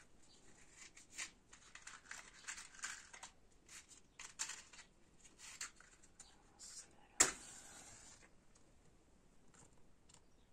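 Scratchy rustling of a matchbox and dry kindling being handled, then a match struck sharply about seven seconds in, flaring with a short hiss that fades over about a second as the kindling is lit.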